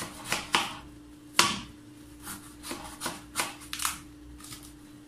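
A kitchen knife slicing through raw, peeled ash gourd on a plastic cutting board: a series of about nine crisp cuts and knocks, the loudest about a second and a half in.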